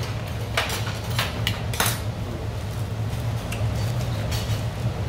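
Steamed oysters in the shell clacking against one another and the metal pot as a gloved hand picks through the pile: a few sharp clinks in the first two seconds, then fainter ones, over a steady low hum.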